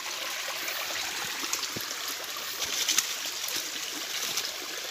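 Small, shallow forest stream trickling steadily over rocks, with a few faint clicks.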